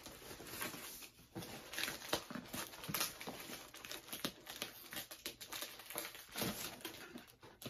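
Packaging being handled and opened by hand: irregular crinkling and rustling with many small sharp crackles.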